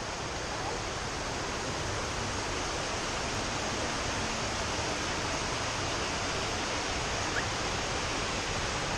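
A waterfall rushing: a steady, even wash of falling water.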